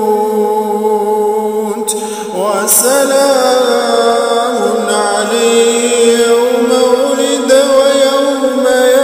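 A man reciting the Quran in Arabic in a slow, melodic chant, drawing out long held notes. There is a short break for breath about two seconds in, then his voice glides back up into the next phrase.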